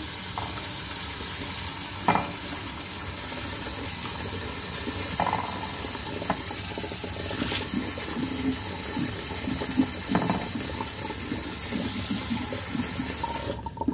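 Kitchen tap running into a plastic bowl in a stainless steel sink while hands swish and rub leafy greens and a tomato in the water, with a few light knocks. The tap shuts off near the end.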